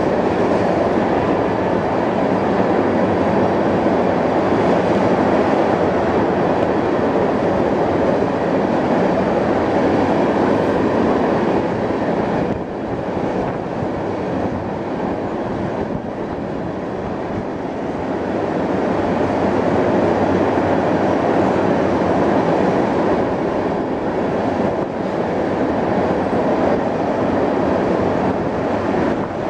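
Crude oil tank cars of a freight train rolling past at speed: a loud, steady rumble of steel wheels on the rails. It eases a little about twelve seconds in and builds again later.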